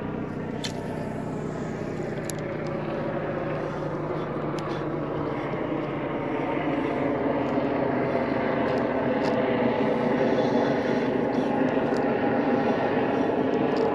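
Boat motor running steadily, growing gradually louder over the first several seconds.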